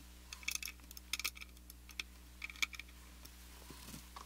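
Scattered light clicks and taps from a screwdriver and hands handling a guitar body on a workbench, in a few loose clusters over a steady low hum.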